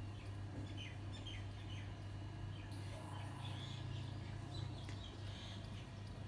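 A sleeping beagle snoring softly and low, with short high chirps coming several at a time over it.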